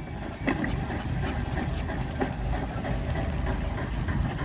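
Fowler Showman's steam traction engine running as it drives slowly past, with scattered knocks and clanks over a low rumble.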